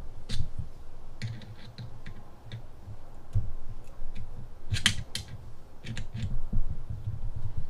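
Irregular small metallic clicks and ticks with low knocks as a Helicoil kit tap is turned by hand, cutting new threads into a stripped bolt hole in a mower transmission case. The loudest cluster of clicks comes about five seconds in.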